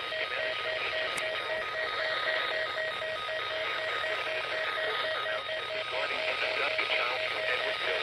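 Weather radio reception full of hiss-like static, with a faint pulsing tone running steadily under it.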